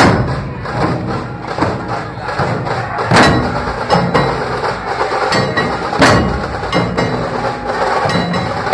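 Dhol pathak drum troupe beating large barrel dhols in a fast, busy rhythm, with a loud accented strike about every three seconds.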